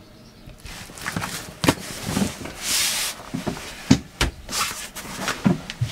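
A packed life raft in its soft valise being pulled out and handled: the bag's fabric rustles and swishes, with several dull knocks and thumps at uneven intervals, starting about half a second in.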